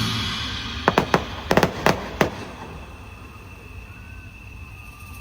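Fireworks going off. A loud blast dies away, then about six sharp cracks go off quickly in a cluster a second or so in.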